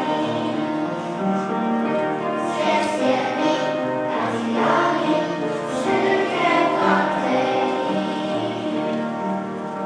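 Children's choir singing together, with long held notes.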